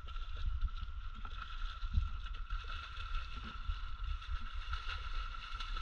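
Two dogs paddling and splashing through shallow lake water, with small irregular splashes over a low wind rumble on the microphone and a steady high tone.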